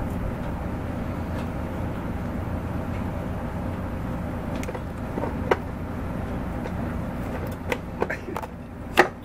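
Clicks and knocks of a 150cc go-kart carburetor and its hoses being worked loose by hand, over a steady low background rumble. The clicks come a few times in the second half, and the loudest is near the end.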